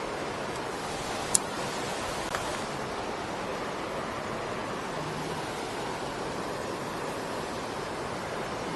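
Steady rush of river water pouring over a weir, with a sharp click about a second and a half in.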